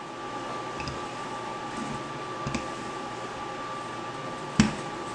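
Dough being kneaded on a work surface: a few light knocks and one sharp thump about four and a half seconds in, over a steady kitchen hum with a faint whine.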